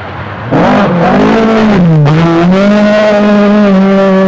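Group B rally car engine, loud from about half a second in as the car accelerates hard. The revs waver and dip briefly around two seconds, then hold steady and high.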